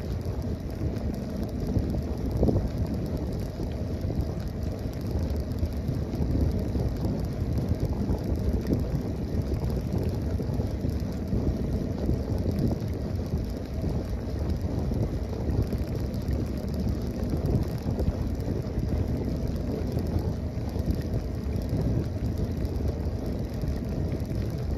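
Wind buffeting the microphone during a bicycle ride, a steady low rumble mixed with bicycle tyres rolling over brick pavers.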